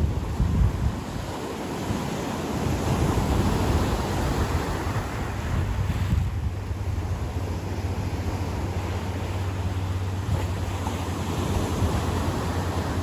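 Ocean surf breaking and washing up a beach in a continuous noisy wash that swells and eases, with wind buffeting the microphone and adding a low rumble.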